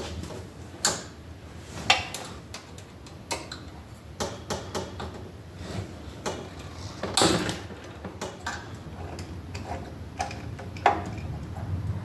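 Hand tools and metal parts clicking and clinking while the carburetor is unbolted from a Predator 224cc small engine. Irregular ticks and knocks with louder clanks about one, two, seven and eleven seconds in, over a low steady hum.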